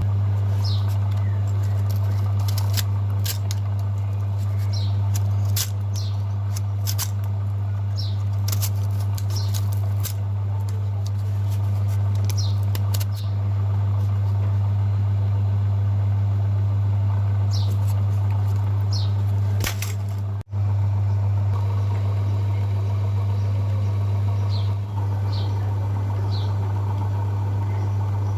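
Electric motor running steadily with a strong low hum, with scattered clicks and short high chirps over it; the hum dips out for an instant about two-thirds of the way through.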